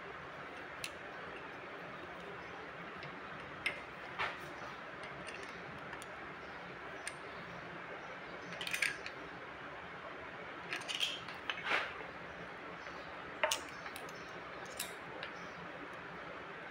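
Scattered light metallic clicks and scrapes of a screwdriver and hand tools working the rocker-arm adjusting screws of a Kubota V1505 diesel, setting valve clearance on cylinder number 1 with the engine stopped. The clicks come in small clusters over a faint steady hiss.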